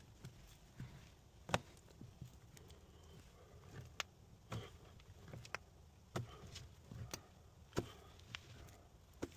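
Irregular sharp taps and knocks, one or two a second, over a quiet background: the small sounds of hands and tools at work.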